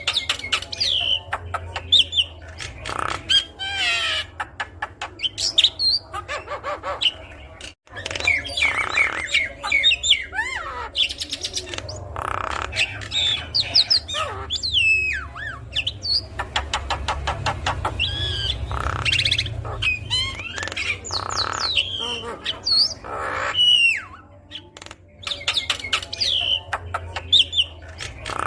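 Javan myna (jalak kebo) singing a fast, varied song of whistles, pitch glides, rapid clicking rattles and harsh squawks, with a brief break about eight seconds in.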